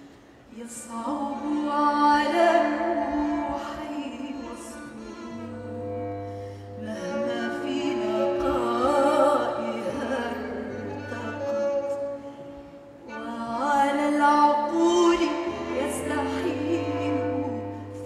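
Live acoustic ensemble music: long, ornamented melodic phrases of singing and bowed strings over held low double-bass notes, with brief lulls about half a second in and again around thirteen seconds in.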